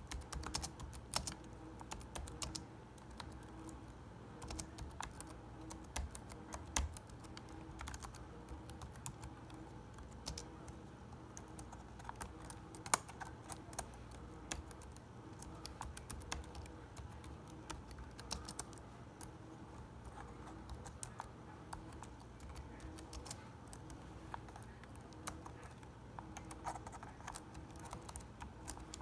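Quick, irregular clicks and taps, many a second, over a faint, steady low hum.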